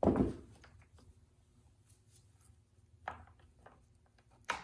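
Homelite XL chainsaw handled on a steel workbench: a thump as the saw is set down, then scattered light clicks and taps from its handle, a few in quick succession about three seconds in and one sharper click near the end.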